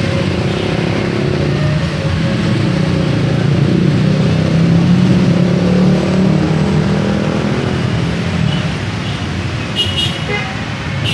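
Congested street traffic: car and motorcycle engines running as vehicles creep past, the rumble swelling about halfway through. A vehicle horn toots, and a short high beep comes near the end.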